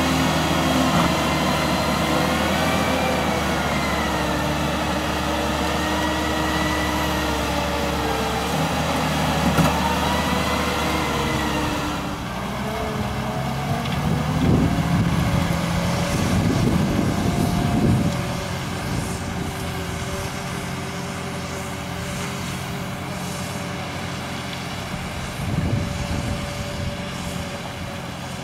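HUDDIG 1260c backhoe loader on Soucy rubber tracks driving through mud: its diesel engine runs steadily with a wavering whine over it. The sound changes about halfway through, with rougher, louder surges a few seconds later and again near the end.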